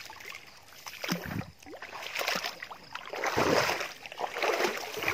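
Shallow creek water sloshing and splashing in irregular bursts as someone moves through it, loudest about three and a half seconds in.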